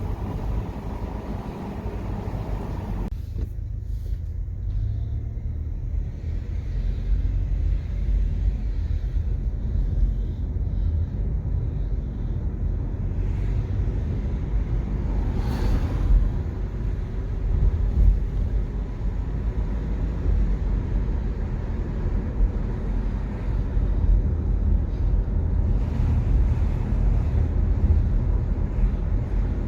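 Car driving along, with a steady low road and engine rumble.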